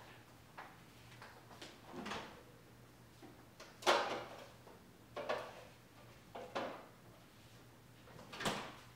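Refrigerator door being opened and shut while things are taken out, heard as a string of separate knocks and clunks. The sharpest comes about four seconds in and another strong one near the end, over a faint steady hum.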